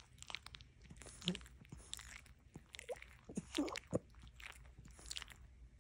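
A sleeping French bulldog smacking its lips and mouth: a run of short, irregular wet clicks and smacks.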